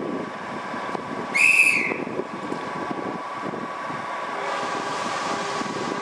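A short, high single-note horn blast from a slowly approaching diesel locomotive, about a second and a half in. Under it runs the steady hum of the locomotive, which grows a little louder near the end as it draws nearer.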